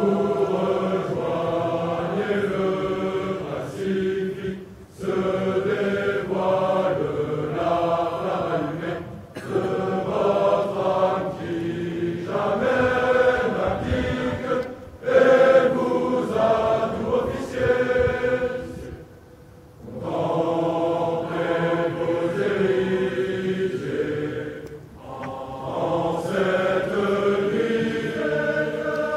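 A large choir of officer cadets singing an a cappella ode, in long phrases broken by a few short pauses.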